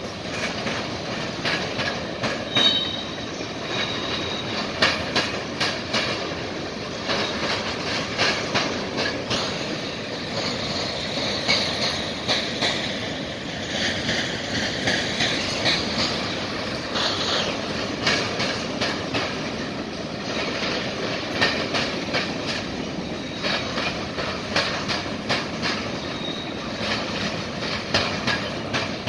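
CN freight train of covered hopper cars rolling past, the steel wheels banging and clattering irregularly as they cross a railroad diamond. A brief wheel squeal rings out about three seconds in and again near the end.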